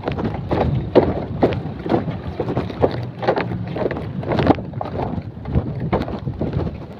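Footsteps on a floating bamboo-slat walkway, about two knocks a second at walking pace, with wind buffeting the microphone.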